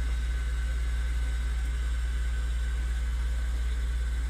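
Steady low electrical hum with a faint hiss from a powered-on laser refurbishing machine standing idle, not firing.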